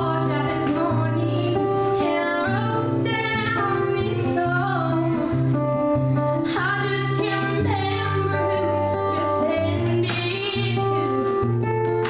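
A woman singing live into a microphone, accompanied by a strummed acoustic guitar.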